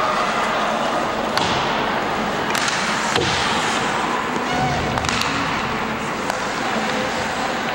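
Ice hockey game sounds in a rink: a steady din of arena and crowd noise broken by about half a dozen sharp knocks of sticks and puck.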